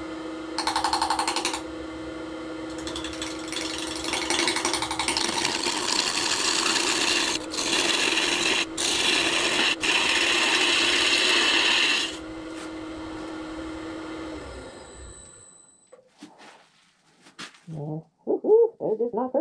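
Wood lathe running with a steady motor whine while a turning tool cuts a spinning blank of walnut and blue-pigmented epoxy, giving a coarse scraping hiss that stops briefly a few times as the tool is lifted. About three-quarters of the way through the lathe winds down and stops, leaving only a few small clicks.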